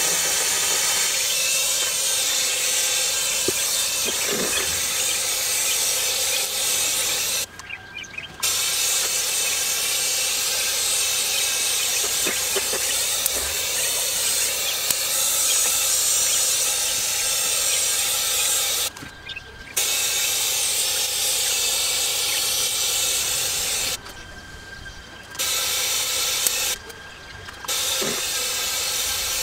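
Powder-coating spray gun hissing steadily with compressed air as it sprays powder. It stops briefly four times.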